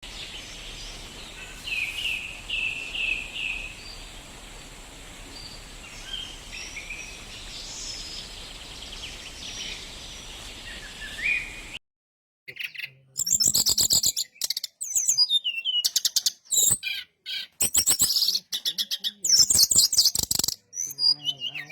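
Brown-chested jungle flycatcher singing. In the first half short chirping notes sit over a steady hiss. After a brief gap about halfway through, a louder, clearer run of rapid, high twittering phrases follows.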